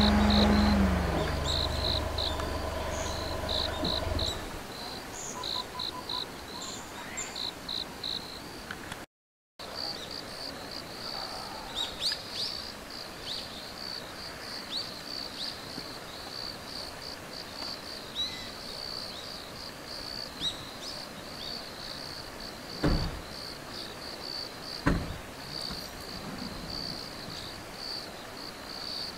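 Insects chirping in a high, rapidly repeating pulse, with a few short bird chirps mixed in. A loud low hum fades out about four seconds in, the sound drops out briefly a little after nine seconds, and two dull thumps come about two seconds apart near the end.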